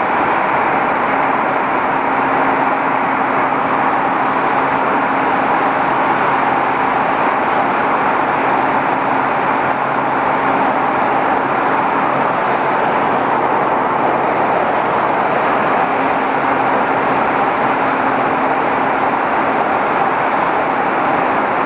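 Motorcycle cruising at highway speed through a road tunnel: steady wind and tyre noise with a low engine hum that fades for a few seconds past the middle.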